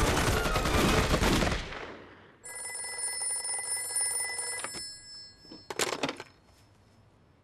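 Rapid gunfire fading out in the first second and a half. Then an old black desk telephone rings with a steady electric bell for about two and a half seconds, and the handset is lifted with a short clatter.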